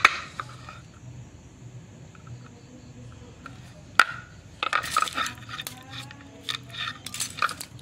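Thin steel transformer laminations clinking and scraping as they are pried out of a small transformer's E-I core with a screwdriver and pliers. There is a sharp click about four seconds in and bursts of metallic clicking a little after that and again near the end.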